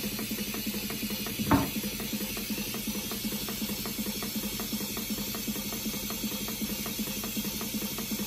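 Model horizontal mill steam engine running steadily, its exhaust and valve gear making a fast, even ticking rhythm over a steady low hum. One louder knock about a second and a half in.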